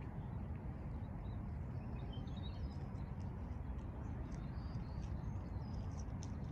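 Steady low outdoor rumble, with faint bird chirps and tweets coming in from about a second in.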